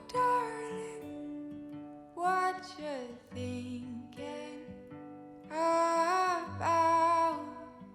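Background music: a song with a sung vocal line over acoustic guitar.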